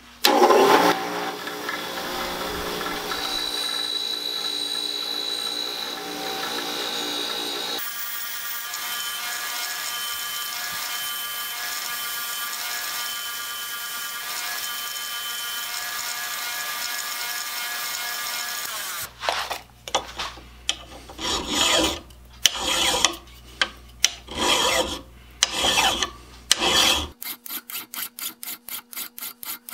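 A bench wire-brush wheel running steadily as a silver-soldered steel clamp screw is held against it to scrub off torch scale. After about nineteen seconds this gives way to short uneven scraping strokes, and near the end a hand file rasps across the screw's threads in quick regular strokes, about four a second, sped up.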